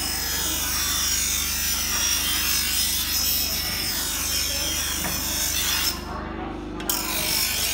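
Electric angle grinder's abrasive disc grinding a metal bar, a steady harsh hiss over the motor's hum. The grinding breaks off for under a second about six seconds in, then resumes.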